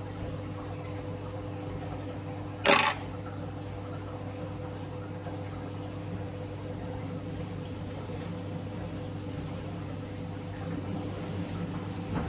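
Steady low hum with a few faint steady tones, and one short sharp noise a little under three seconds in.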